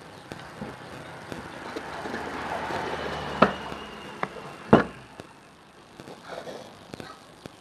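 Metal housing of a rewound radiator fan motor being handled and shifted on a concrete workbench: a scraping, rustling noise that builds for a couple of seconds, then two sharp knocks just over a second apart, the second the loudest, with small clicks around them.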